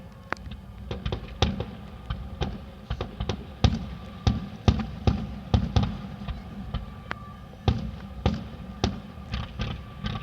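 Fireworks going off in a rapid, irregular run of bangs and crackles, several a second, with distant booming underneath.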